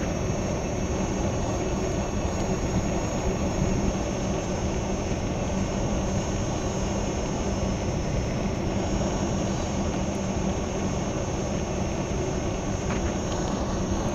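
Steady wind and rolling noise while riding a Gotway MCM4 electric unicycle, with a steady low hum and a faint high whine.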